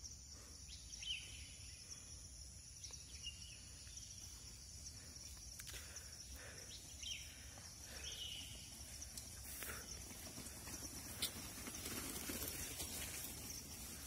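Faint forest ambience: a steady high insect drone with a few short bird chirps, and a low rustling noise that grows slowly louder toward the end as mountain bikes roll closer over the stony, muddy track.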